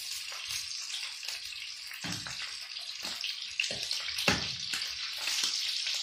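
Pieces of meat sizzling as they are sautéed in a hot pan, a steady hiss with a few knocks of a cooking utensil against the pan around the middle.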